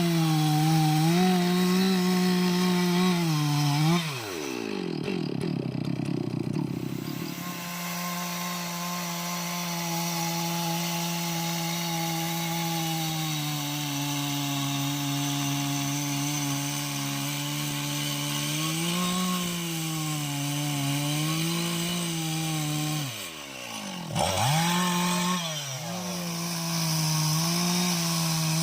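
Two-stroke chainsaw running at high revs while cutting through jackfruit wood. The engine note drops sharply about four seconds in and again near the end, then picks back up.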